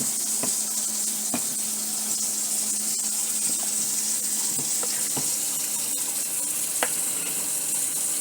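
Water running from a pipe in a steady hiss, with a few light clicks.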